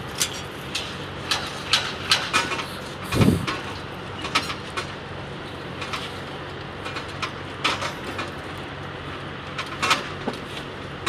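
Nail clipper snipping toenails: a series of short, sharp clicks at irregular intervals over a steady low hum, with one heavier thump about three seconds in.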